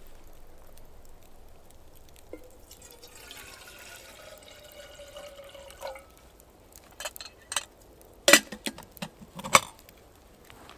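Liquid poured into a container, its pitch rising as the vessel fills, then several sharp knocks, two of them loud.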